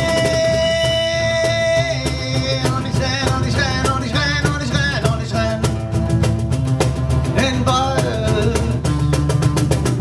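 Live acoustic band music: an acoustic guitar played along with hand percussion and a man singing, holding one long note during the first two seconds before moving into a melody.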